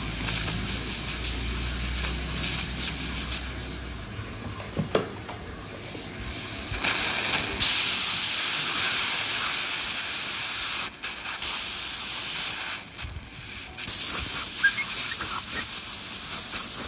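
Dental suction tips and the air-water syringe spray hissing while blue etching gel is rinsed off a front tooth under a rubber dam. The hiss grows louder about seven seconds in and stops briefly twice before it resumes.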